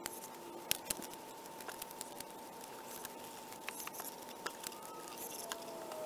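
Irregular light clicks and taps of 10 mm copper microbore tube being wound by hand into a coil, its turns knocking against each other, with two sharper clicks about a second in. A faint steady high whine sits underneath.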